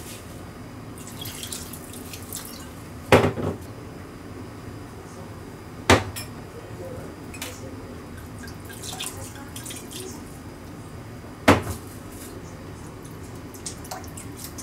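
Kitchen handling while seasonings are added to a pot: liquid trickling from bottles into the pot, with three sharp knocks of bottles or utensils set down on the counter, about 3, 6 and 11.5 seconds in.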